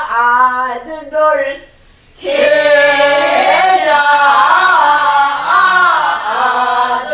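A woman sings a phrase of a southern Korean folk song (Namdo minyo) in a voice with wide pitch bends. After a short pause, about two seconds in, a small group of men and women sing the phrase back together in unison.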